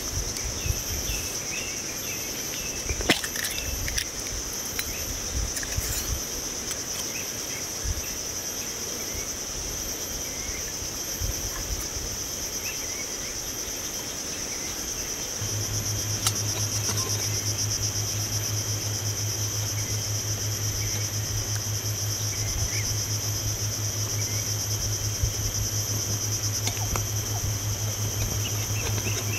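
Steady high-pitched chorus of insects. A few light knocks come from metal cups being handled, and a low steady hum comes in about halfway through.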